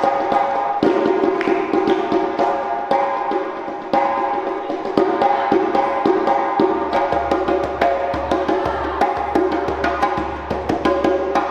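Djembe played by hand in a fast, dense run of strikes, with a steady pitched layer sounding underneath.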